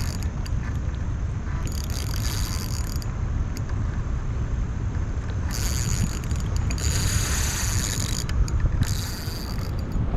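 Fishing reel being wound in several short spells, each about a second long, as a hooked carp is reeled in. Under it runs a steady low rumble of wind on the microphone.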